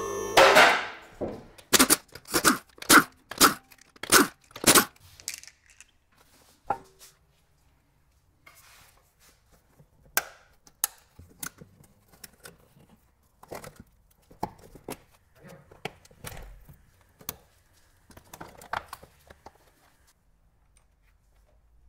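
Hand tools and parts being handled during accessory-belt work: six sharp knocks about half a second apart, then scattered lighter clicks and rustling. The tail of intro music fades out in the first second.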